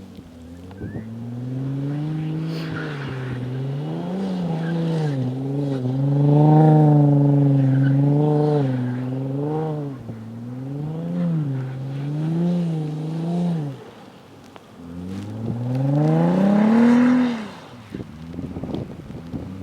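Audi S4 B5's 2.7-litre twin-turbo V6 revving hard in repeated rises and falls about every second and a half, then dropping off, then one long climbing rev that cuts off sharply. A few light clicks near the end, which the owner suspects come from the rear differential or something rattling.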